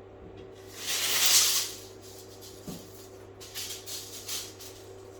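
A steel tape measure being handled while measuring a wall: a loud rattling swish about a second in, then a few short scrapes and knocks.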